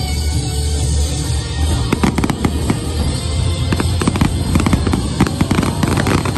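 Fireworks going off in quick succession: a dense run of crackling and popping that thickens about two seconds in.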